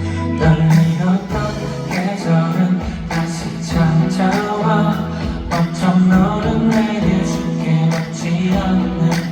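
Live pop music: a male singer performing over a band, with a steady drum beat and a held bass line.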